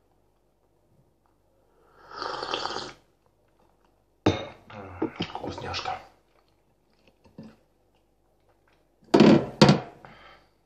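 A slurp of tea from a ceramic mug, then a knock as the mug is set down, followed by mouth and handling noises; near the end, two sharp crinkles of a plastic bag as bread is taken out of it.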